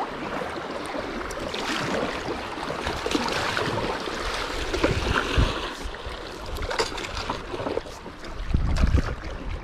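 Paddle strokes splashing and water sloshing along an inflatable stand-up paddleboard moving down a river, with wind buffeting the microphone near the end.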